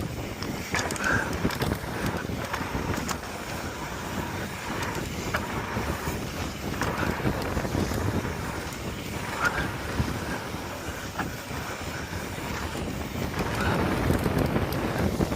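Wind buffeting the microphone over the steady noise of a mountain bike riding fast downhill on a dirt trail, with scattered knocks and clicks from the bike going over rough ground.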